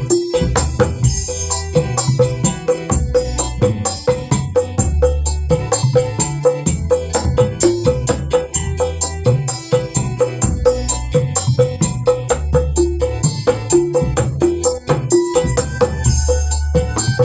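Kendang hand drums playing a fast, steady dangdut rhythm with tambourine over an instrumental backing with deep bass notes.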